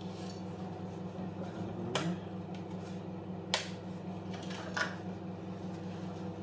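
Dried lasagna sheets clicking against a glass baking dish as they are laid in: three short, sharp clicks, the middle one the loudest, over a steady low hum.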